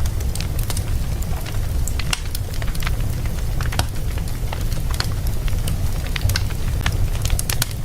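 Wood fire in a fireplace crackling, with many sharp, irregular pops and snaps over a steady low rumble of the flames.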